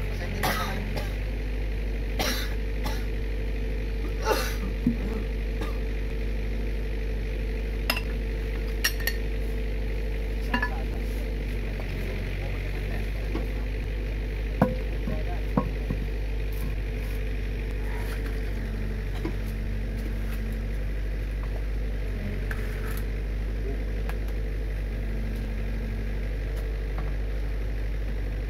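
Komatsu PC45 mini excavator's diesel engine running steadily, with scattered sharp knocks and clinks over it, mostly in the first half and the loudest about midway.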